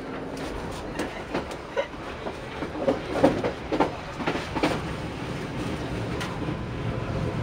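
Walahar Express passenger train's wheels running over rail joints and switch points, a cluster of sharp knocks about three to five seconds in, over a steady running rumble.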